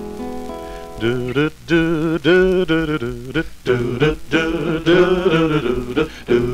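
Gospel song as background music: a held chord, then male voices singing with heavy vibrato from about a second in.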